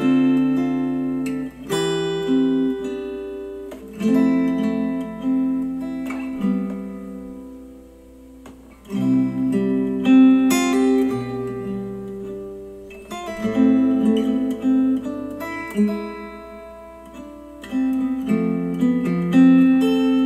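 Acoustic guitar music with strummed and plucked chords, played back through Monitor Audio Bronze 100 bookshelf speakers driven by a Cambridge Audio CXA81 integrated amplifier.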